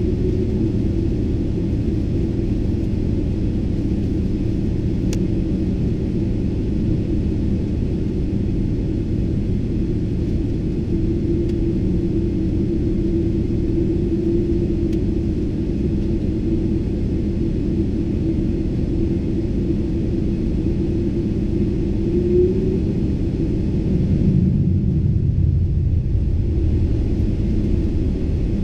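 Boeing 777-300ER's engines and airframe giving a loud, steady low rumble and drone. About 24 seconds in, the low rumble swells for a couple of seconds while the higher hiss drops away.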